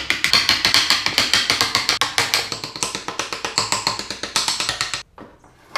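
Rapid, evenly spaced wooden tapping, about eight strikes a second, stopping abruptly about five seconds in.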